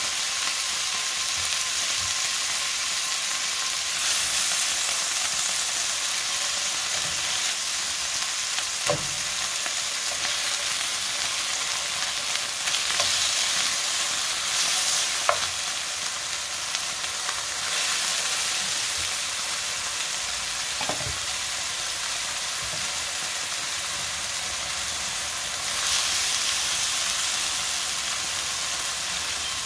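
Thin-cut beef steak sizzling in hot oil in a frying pan: a steady hiss with a few small clicks, swelling briefly now and then.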